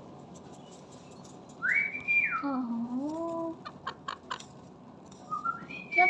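Indian ringneck parakeet whistling: a rising whistle held briefly, then gliding down into a lower, voice-like note. A few sharp clicks follow about a second later.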